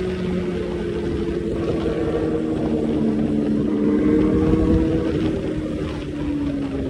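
Motorcycle engine running steadily while riding, its pitch easing slowly lower.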